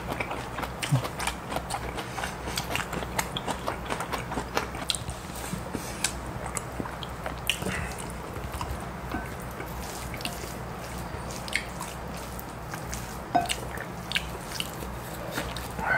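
Close-miked eating: steady chewing and biting of lettuce-wrapped raw fish, with many small wet mouth clicks. Now and then a sharper click comes from metal chopsticks or a spoon touching the dishes.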